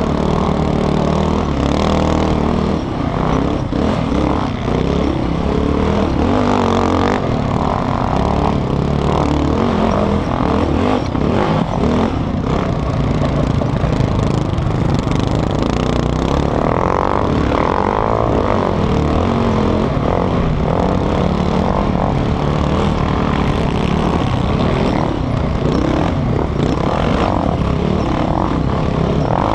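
Sport quad's engine, heard close up from on board, revving up and down as it is ridden hard through corners and straights, over a steady rush of wind and dirt noise.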